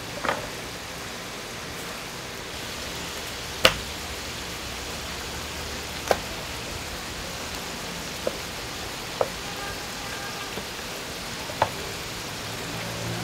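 Pork parts sizzling steadily on a large iron griddle, with six sharp clicks scattered through; the loudest comes about three and a half seconds in.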